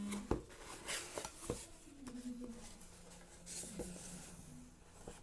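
Hard objects being handled while unpacking: a few sharp knocks and clicks, with light rubbing and scraping between them.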